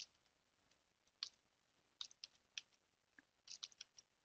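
Faint computer keyboard keystrokes: a few separate key presses at uneven intervals, then a quick run of several near the end, as a shell command is typed.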